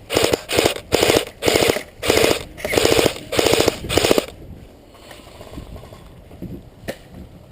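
Airsoft rifle firing on full auto in a rapid string of short bursts, about eight or nine, stopping about four seconds in.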